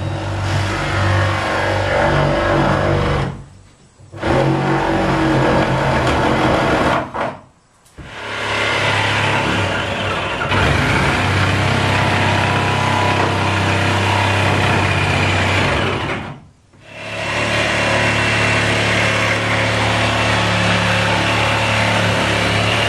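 Electric jigsaw cutting a round opening through painted wooden wall boards. It runs in long stretches and stops briefly three times.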